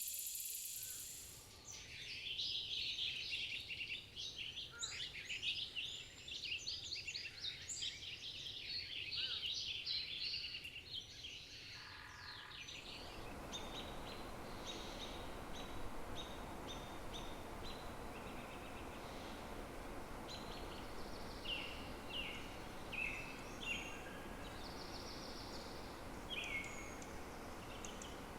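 Outdoor nature ambience: a dense chorus of many birds singing and chirping, which about halfway through gives way to a steady rushing background noise with scattered bird chirps over it.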